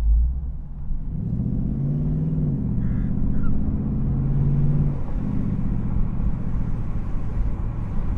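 Ford Mustang GT's 5.0-litre naturally aspirated V8 accelerating away with its active exhaust in comfort mode, the pitch rising and then holding, then dropping back as the car eases off about five seconds in. A short low thump at the very start as the car goes over a speed bump.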